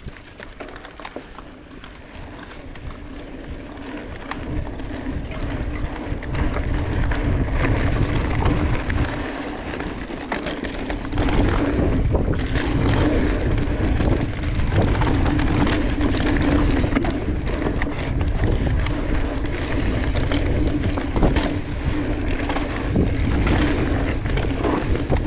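Mountain bike riding down dirt singletrack: wind buffeting the helmet camera's microphone over knobby tyres rolling on dirt, with frequent clicks and rattles from the bike over bumps. A steady hum runs underneath, and the noise builds over the first several seconds as speed picks up.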